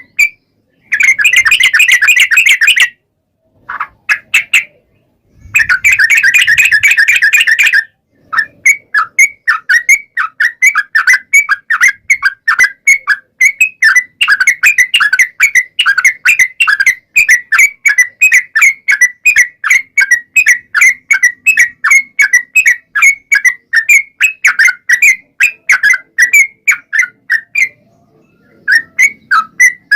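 Yellow-vented bulbul (trucukan) singing fast, loud chattering notes. It gives two dense rolling trills, about a second in and again about five seconds in, then a long unbroken run of quick repeated notes that pauses briefly near the end.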